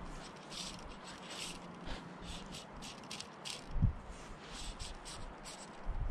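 Fly line being stripped in by hand through the rod guides: a run of short, soft swishes a few times a second, with one dull knock about four seconds in.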